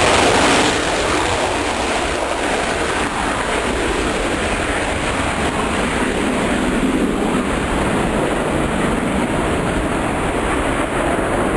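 Military jet taking off: a loud, steady rush of engine noise that eases slightly about a second in as the jet lifts off and climbs away.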